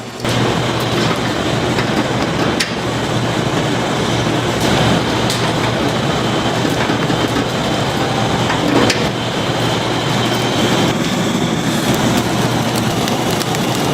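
Wood fire burning: a steady rushing noise with sharp crackles and pops here and there, over a low steady hum.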